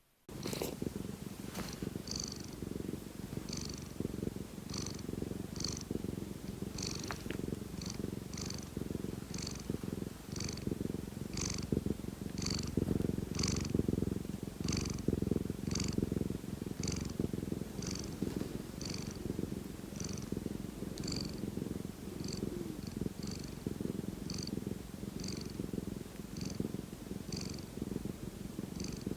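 Domestic cat purring steadily and continuously, a low rumble with faint breathy marks repeating a little over once a second.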